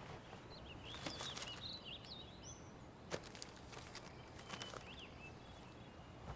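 Quiet outdoor ambience with small birds chirping in short, high, twisting calls, a cluster about a second in and a few more later, along with a few soft clicks.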